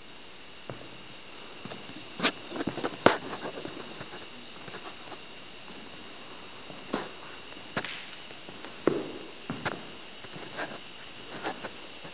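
Steady high-pitched chirring of night insects, with scattered knocks and thumps over it.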